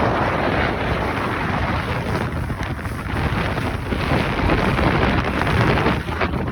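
Wind buffeting the microphone: a loud, steady rushing roar.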